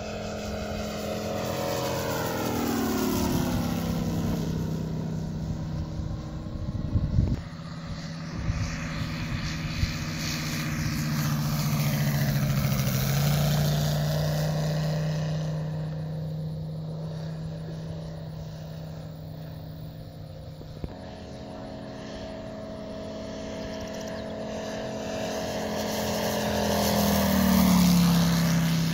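Moki 250 five-cylinder radial engine of a giant-scale RC Grumman Wildcat running steadily in flight, swelling and fading as the plane flies passes. Its pitch drops as it goes by, about three seconds in and again near the end. A few brief knocks come about seven seconds in.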